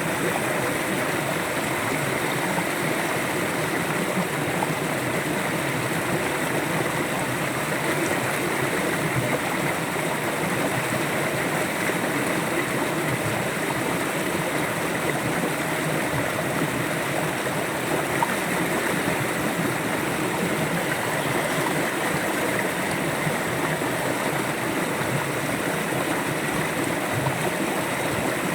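River water flowing and gurgling over rocks, a steady, unbroken rush.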